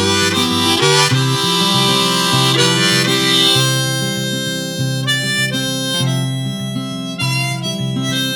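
Harmonica playing a melody over acoustic guitar in an instrumental break of a folk song.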